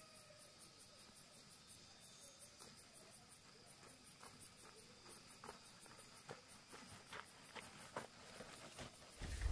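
Faint, high-pitched insect chirping in a fast, even pulse, with a few soft ticks near the middle.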